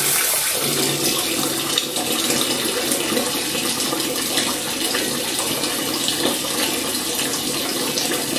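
Homemade water aspirator vacuum pump made from brass plumbing fittings, with mains water rushing steadily through its jet as it pulls a vacuum.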